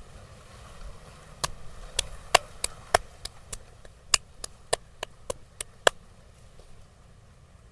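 Percussive massage strikes: about fifteen sharp, crisp strikes in a quick run, roughly three a second, stopping about six seconds in.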